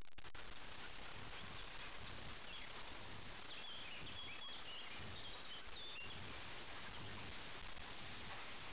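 Faint outdoor ambience: insects chirring in a high, pulsing trill over a steady hiss, with a few short high chirps near the middle.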